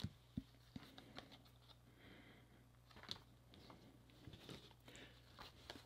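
Faint, irregular clicks and light slides of Topps 2021 Series 1 baseball cards being flipped one by one off a stack by hand, over a steady low hum.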